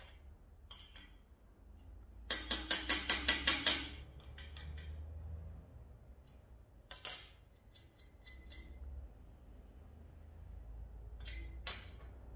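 Metal hand tools and bronze parts clinking against a steel bench plate. About two seconds in there is a quick run of about nine sharp metallic clicks, then a single clink near seven seconds, then a couple more near the end.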